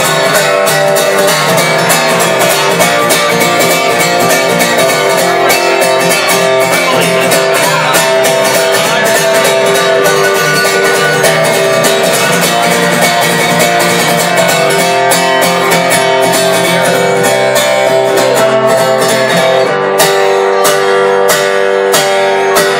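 Acoustic guitar strummed steadily through an instrumental break with no singing. Near the end the strumming turns to sharper, separate strokes.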